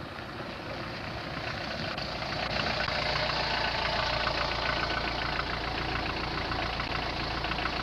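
Small car's engine running as the car comes up slowly and stops close by, growing louder over the first few seconds and then running steadily with a light rattle.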